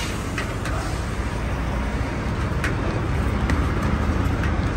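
An engine idling with a steady low hum, and water from a garden hose hissing and splashing onto concrete, with a few light knocks as the hose is handled.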